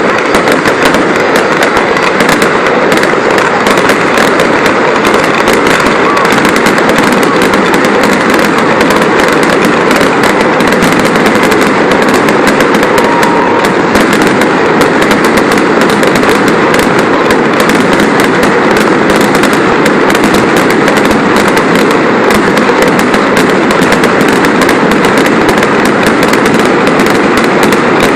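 Fireworks going off in a dense, unbroken barrage of rapid crackles and pops, loud throughout.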